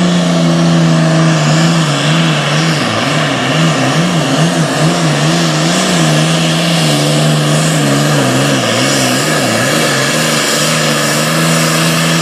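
Super Farm pulling tractor's diesel engine running hard under load down the track, with a strong high hiss over it. Its note wavers up and down several times a second through much of the run, then the sound drops off abruptly at the end.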